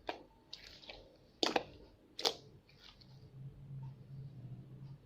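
Glitter slime being squeezed and worked by hand, giving a series of sharp wet pops and clicks, the two loudest about a second and a half and a little over two seconds in. A faint low hum runs through the second half.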